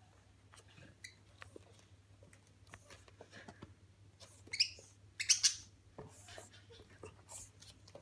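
Budgerigar chirping, with a few loud, shrill calls about halfway through.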